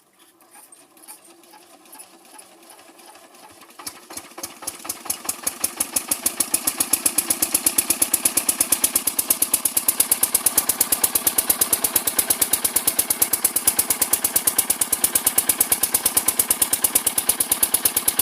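Kirloskar single-cylinder diesel engine running with an even, regular firing beat. It grows louder over the first several seconds and then holds steady. The owner puts its heavy smoke and oil use down to extra load from a pump impeller rubbing against its housing after the shaft worked out of place.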